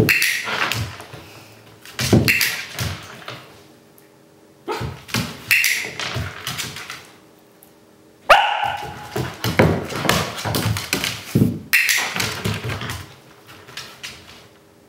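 Young Finnish Lapphund barking in several bouts of sharp barks, with short pauses between them, going quiet near the end.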